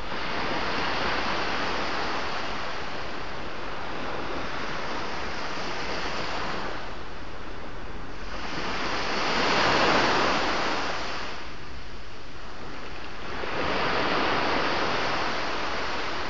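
Sea waves breaking and washing up a beach in a steady hiss, with three surges about 1 s, 10 s and 14 s in; the one near the middle is the loudest.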